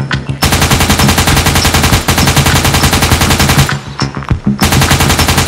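Rapid automatic-gunfire sound effect, a machine-gun burst of about three seconds, a brief pause, then a second burst starting near the end, with background music under it.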